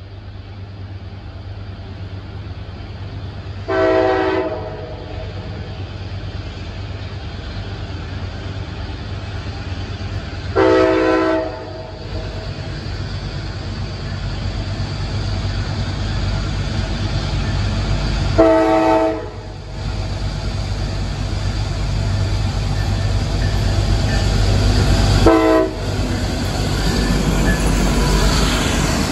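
Approaching CSX ST70AH locomotive 8909 sounding its multi-note air horn: three long blasts and one short one, several seconds apart. Beneath the horn, the low rumble of the diesel and the loaded coal train grows steadily louder as the locomotive draws close and passes.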